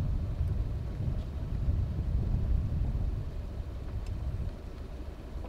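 Wind buffeting the microphone: a low, uneven rumble that swells and fades in gusts.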